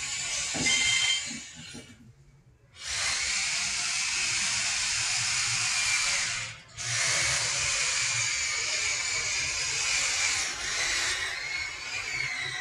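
Steady hiss, breaking off for under a second about two seconds in and again briefly near the middle, with the last notes of a music track at the start.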